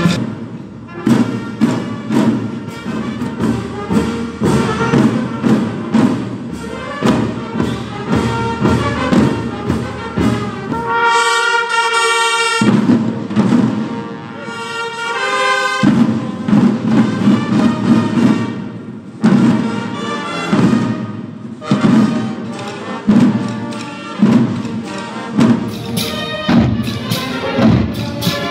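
A corps of marching side drums beaten with sticks in a steady, loud march rhythm. About halfway through, a melody on wind instruments rises clearly over the drums for a few seconds.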